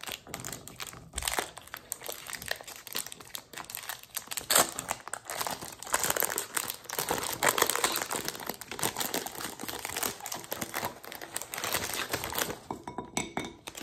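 Reese's Sticks candy-bar wrapper crinkling as it is torn and peeled open by hand: a dense, irregular run of crackles that thins to a few scattered crinkles near the end.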